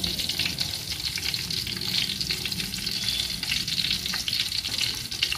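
Masala-coated whole fish shallow-frying in hot oil in a pan: a steady, dense sizzle and crackle.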